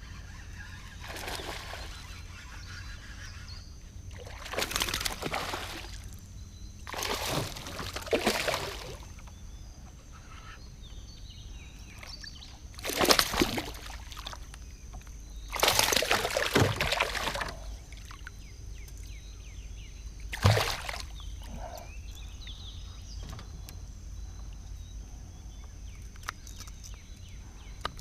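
Water sloshing and splashing in about six short separate bursts over a steady low rumble. The sharpest and loudest burst comes about two-thirds of the way through.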